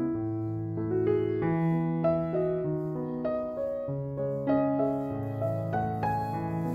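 Background piano music: a steady run of single notes over longer-held bass notes.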